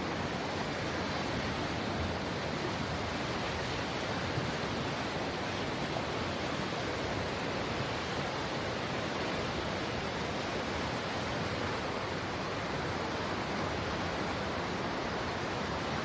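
Fast-flowing floodwater rushing in a steady, even roar.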